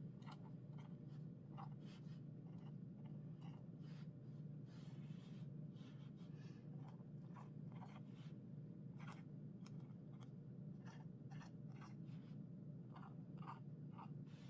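A white pen making small taps and short strokes on paper: faint, irregular ticks and scratches, over a steady low hum.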